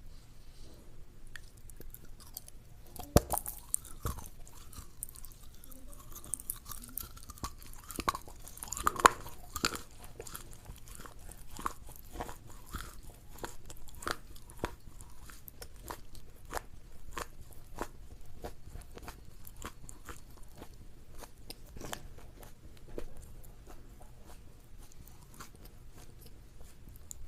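Crunchy food being bitten and chewed: sharp loud bites about 3 and 9 seconds in, then a steady run of crackling chews.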